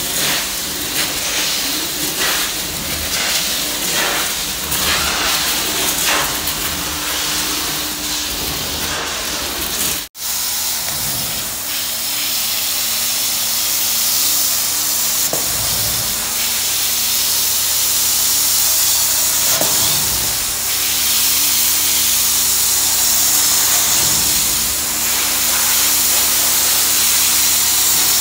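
Truck-mounted carpet-cleaning wand drawn over carpet, spraying hot water and sucking it back up: a loud steady hiss with a low hum underneath. It cuts out for an instant about ten seconds in.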